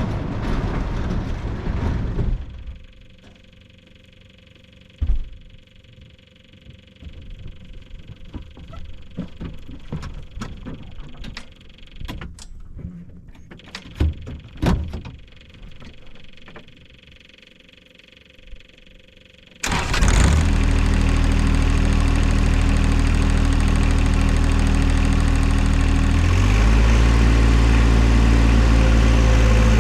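Clicks and knocks of a camera being handled and mounted, then the John Deere 1025R compact tractor's three-cylinder diesel engine comes in suddenly and loud about 20 seconds in, running steadily and rising in speed about six seconds later.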